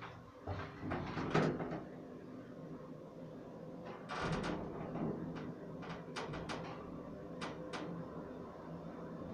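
Otis elevator car running, with door and mechanism clunks about a second in and again around four seconds in over a steady hum. Several sharp clicks follow in the second half.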